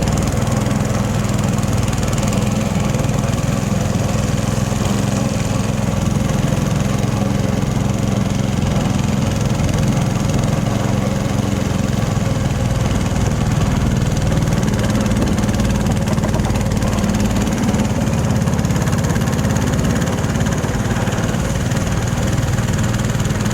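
Fishing boat's engine running steadily at a constant speed while the boat is under way.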